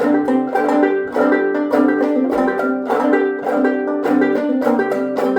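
Instrumental break of a folk song on plucked strings: quick, evenly picked notes at a steady beat, with no singing.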